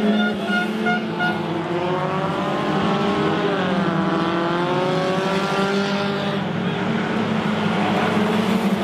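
Stock car engines on a dirt track, a steady drone with engine pitch rising and falling as the cars rev through the corner. A pulsing high tone stops about a second in.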